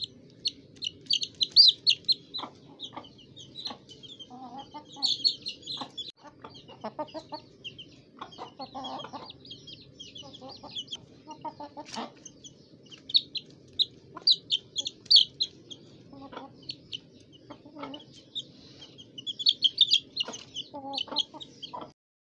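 Aseel chickens clucking, with repeated bursts of high chirping and scattered short clicks over a steady low hum; it all cuts off suddenly near the end.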